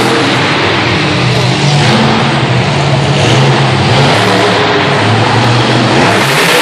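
Monster truck's engine revving hard, its pitch rising and falling in a continuous loud drone as the truck drives across the arena and lifts its front wheels.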